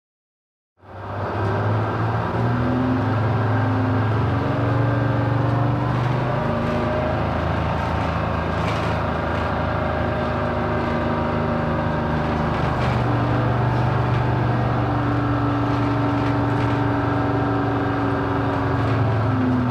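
A bus engine running steadily, fading in after about a second of silence. Its note steps up and down a few times as the bus changes speed.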